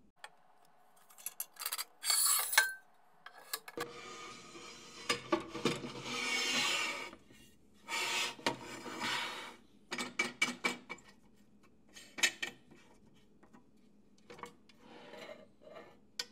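Aluminium fence face of a bandsaw rip fence being slid and repositioned on its fence body: metal scraping along metal in several long slides, with sharp clicks and knocks between them.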